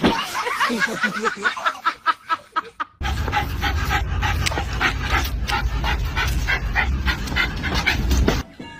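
A dog making quick, repeated short sounds, several a second. About three seconds in, a steady low rumble starts under them and runs until shortly before the end.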